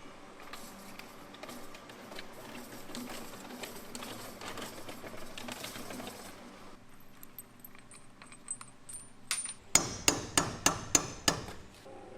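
Light scraping and tapping on metal, then, near the end, about six sharp hammer blows on metal in quick succession, each ringing briefly.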